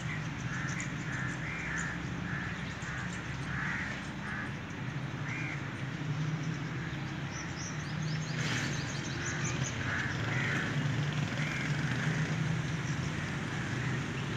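Birds calling outdoors: a long run of short calls repeating every half second or so, over a steady low hum.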